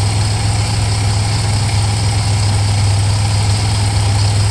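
The 2005 Pontiac Grand Prix's supercharged 3.8 L V6 idling steadily, with a low even hum, while the transmission fluid level is checked with the engine running.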